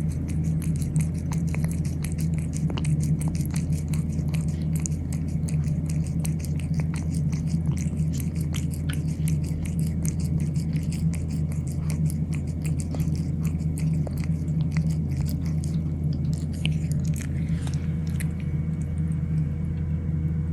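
Cats chewing and biting their food: a dense, irregular run of small clicks and crunches, with a steady low hum underneath.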